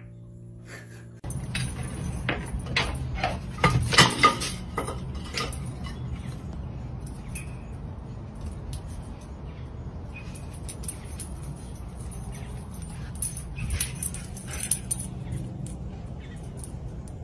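Light clicks and metallic jangling as a dog walks on brick pavers with a leash, over a steady low background hum.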